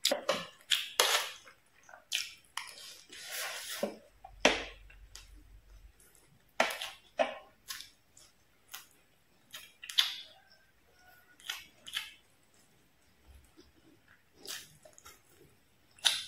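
Close-up eating sounds: chewing and smacking on fried fish and rice, with fingers picking at the fish. Short, irregular wet clicks and crunches, with a brief low rumble about four seconds in.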